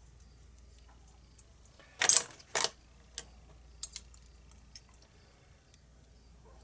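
Small metal lock parts and tools clinking as a padlock is handled during disassembly: a sharp metallic rattle about two seconds in, a second one just after, then a few light ticks.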